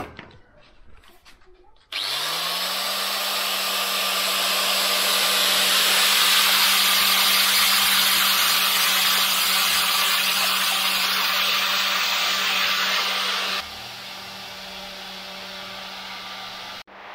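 Handheld angle grinder starting about two seconds in, its motor spinning up to a steady hum, then a loud, steady hiss as its red abrasive disc works over a stainless steel spoon lure blank. The hiss drops off sharply near the end while the motor keeps running.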